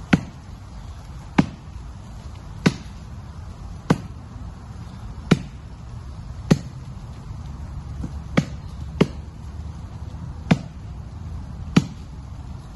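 Axe chopping into the base of a dead standing tree: about ten single blows a little over a second apart, each a sharp knock into the wood.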